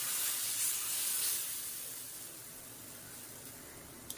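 Thin egg-and-maida batter sizzling on a hot dosa griddle as it cooks, a steady hiss that fades gradually toward the end.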